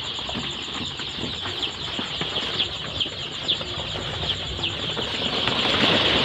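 Many five-day-old chicks peeping in a brooder box: a dense mass of short, high, overlapping peeps, growing louder near the end.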